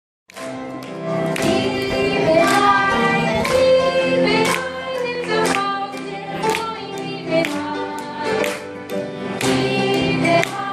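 Children's choir singing a praise song over musical accompaniment that has a strong beat about once a second.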